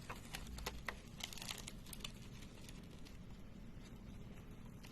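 Faint crinkling and small crackles of adhesive tape stuck to paper as it is stretched and twisted by hand, mostly in the first two seconds.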